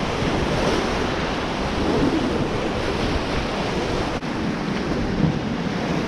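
Whitewater river rapids rushing and splashing steadily as a raft runs through them.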